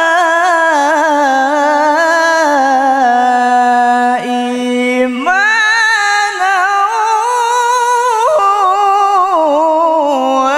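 Male voice reciting the Quran in melodic tilawah style into a microphone, drawing out long ornamented notes with quivering vibrato. About four seconds in the note breaks off briefly, then the voice glides up into a new held phrase.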